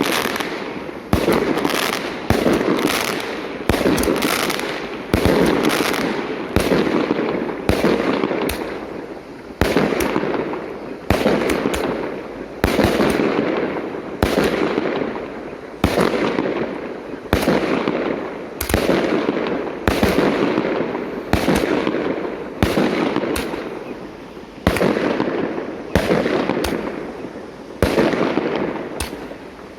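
A 36-shot consumer fireworks cake firing shot after shot, roughly one a second, each a sudden sharp bang that fades away over about a second before the next.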